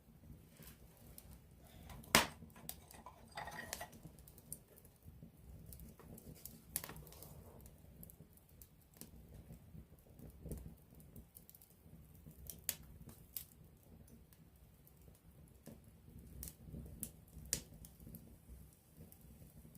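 Wood campfire burning close up, crackling with sharp pops at irregular intervals, the loudest about two seconds in, over a low steady noise from the flames.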